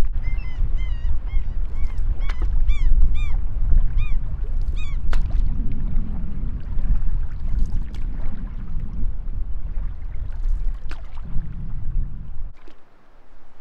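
Wind rumbling on the microphone from a canoe out on a choppy lake. Over the first five seconds a bird gives a quick series of short, arched calls. The wind noise drops away sharply near the end.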